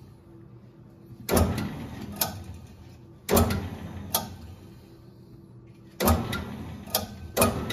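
Metal lathe turning a Subaru EJ crankshaft at slow speed for a runout check, with four sharp clunks, each followed by mechanical noise that fades away.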